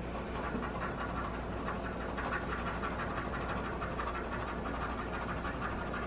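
Scratch-off lottery ticket being scratched, a steady run of quick little scrapes rubbing off the coating.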